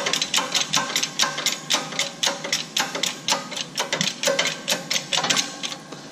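Hydraulic shop press being pumped by hand: a fast, even run of metallic clicks, about five a second, that stops near the end.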